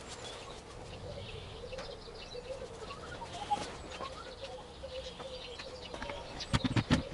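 Birds calling outdoors: a low wavering call with scattered chirps. A few sharp knocks and clatter near the end.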